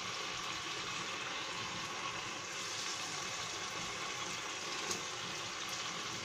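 Onion-and-spice masala gravy bubbling and sizzling in a nonstick pan as whole tilapia are laid into it: a steady hiss of simmering sauce, with a small knock about five seconds in.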